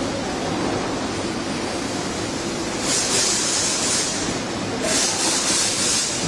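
A steady rumbling hiss of background noise, with two hissing scrapes of about a second each, about three and five seconds in, as the stainless steel tee fitting is pressed and turned onto the filler's steel cylinder by hand.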